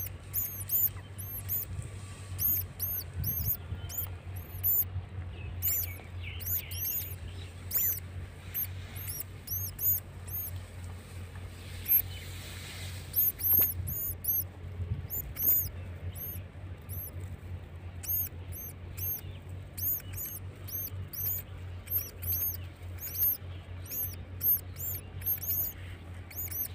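Baby mice squeaking: many short, high-pitched squeaks that rise and fall, coming in quick runs, with a brief lull about twelve seconds in.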